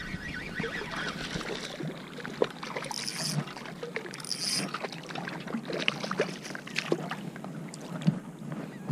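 Bay water splashing and lapping close by as a small fish is reeled in and lifted from the surface, with scattered short splashes and ticks. Two brief high hisses come about three and four seconds in.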